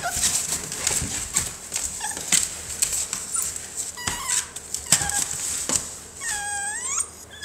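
American bully puppies scrambling in a plastic kiddie pool lined with wood shavings, their claws scratching and knocking on the plastic through the whole stretch. A puppy gives a few short yelps and then one drawn-out high whine about six seconds in.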